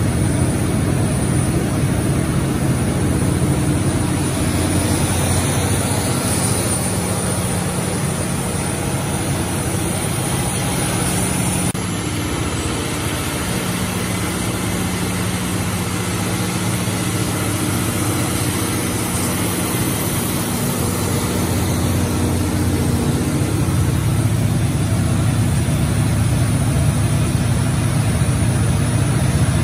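200 kW Cummins natural gas generator set running steadily at its governed speed of about 1,800 rpm, the speed for 60 Hz output, with an even low engine hum.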